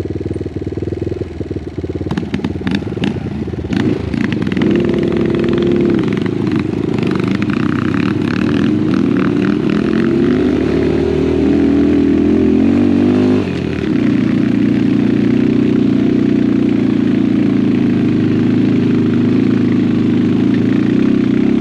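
Small motorcycle engine revving hard on a dirt trail, its pitch climbing, dipping briefly about thirteen seconds in, then held at high revs. Rattling clatter is heard over the first several seconds.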